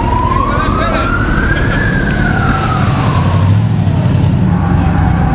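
A siren wailing, its pitch rising for about two seconds, falling slowly, then starting to rise again at the end, over the engines of classic American cars driving past, which grow louder about three and a half seconds in.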